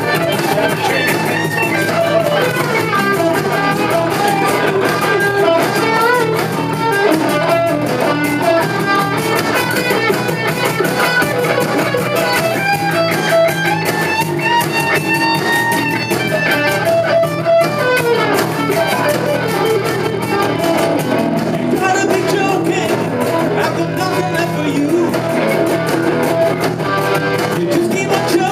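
Live rock band playing an instrumental passage of an original song, led by electric guitar, without singing.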